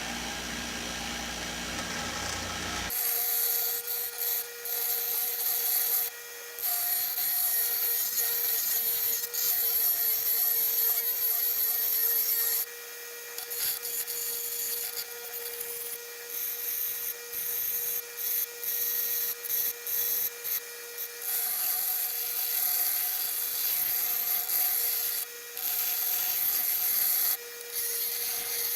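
Grinder grinding a metal knife blank: a steady motor tone under a harsh hiss that starts about three seconds in and breaks off briefly now and then as the metal is lifted and pressed back to the wheel.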